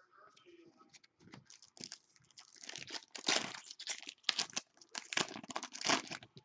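Crinkling and rustling of trading-card packaging being handled, in irregular bursts that grow louder about halfway through.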